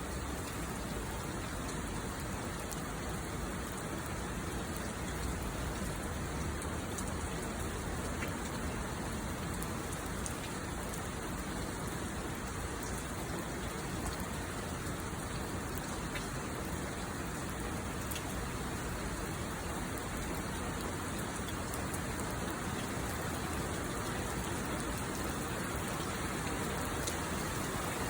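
Heavy monsoon rain pouring steadily, with scattered drops ticking on hard surfaces.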